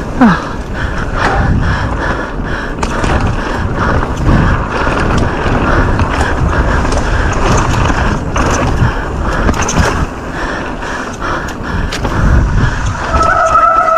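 Mountain bike going fast down a rough downhill trail: a continuous rattling, rolling noise of tyres and bike over rough ground, with a steady high squeal near the end.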